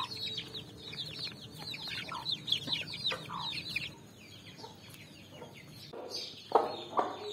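Chicks peeping in rapid, short, high chirps that fall in pitch, over a hen's low clucking. A few louder hen clucks come near the end.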